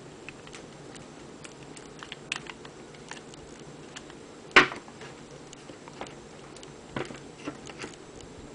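Small clicks and taps of fingers turning the thumb screws and handling a Corsair Dominator memory fan unit, with one sharper click about halfway through.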